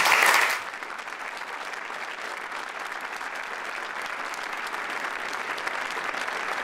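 Audience applauding: a loud burst right at the start, then steady clapping from many hands that grows slightly louder.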